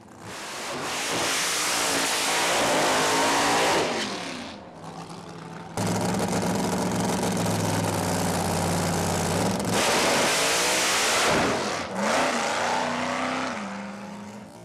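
Pro Modified doorslammer drag car's engine at full throttle, loud and rough, its pitch falling away as the car pulls off down the strip. About a third of the way in it cuts abruptly to another loud stretch of the engine held at high revs, then more revving before it fades near the end.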